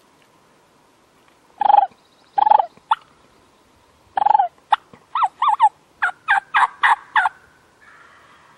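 Turkey yelping, loud and raspy: three yelps, a short pause, then a quick run of about ten notes that climbs in pitch, like an excited hen cutting.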